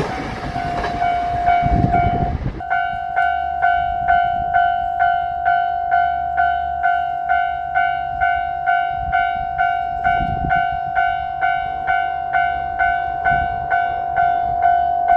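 Japanese level crossing warning bell ringing in a steady, evenly repeated ding, about two strikes a second. The passing train's running noise dies away in the first couple of seconds.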